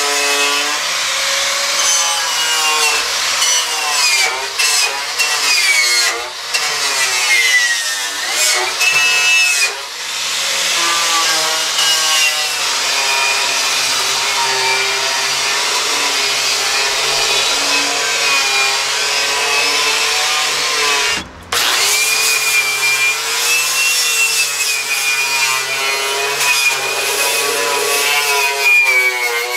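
Angle grinder with a cup wire wheel scrubbing surface rust and paint off steel rocker panel and underbody, its whine rising and falling as the wheel is pressed on and eased off. It cuts out briefly about two-thirds of the way through and then runs on.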